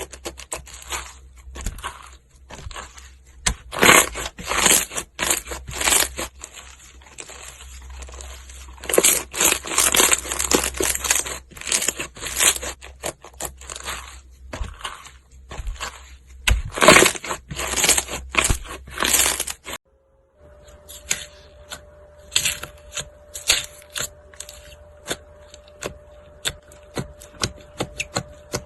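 Slime being squeezed and poked by hand, giving a dense, irregular run of sticky clicks and crackling pops. There is a brief break about two-thirds of the way through, after which the pops continue over a faint steady hum.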